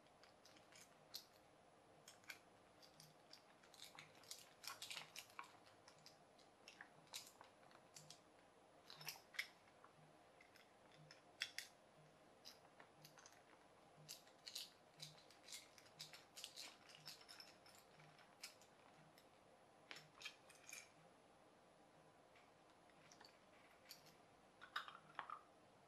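Faint, irregular small clicks and scrapes of a precision screwdriver driving small screws into a plastic dynamo torch's gear housing, and of the plastic parts being handled.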